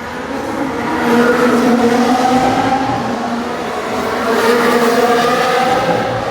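Formula 1 car's turbocharged hybrid V6 engine running at racing speed. Its pitch rises and falls as the car accelerates and slows, and it gets louder about a second in.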